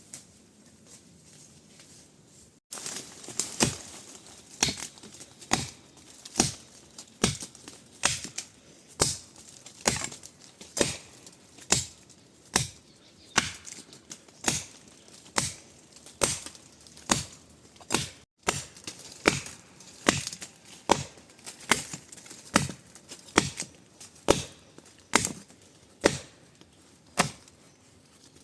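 Steady chopping, sharp strikes about two a second, beginning a few seconds in after faint background, with a brief break about two-thirds of the way through.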